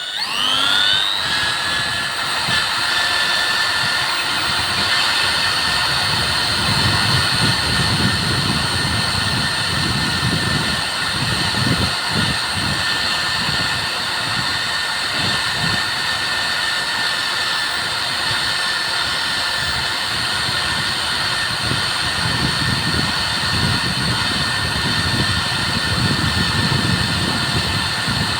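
A high-speed power tool whines up to speed in the first second, then runs steadily, with a rough grinding noise that swells and fades as it works. This is the sound of scouring carbon crust left by burnt two-stroke oil off engine parts.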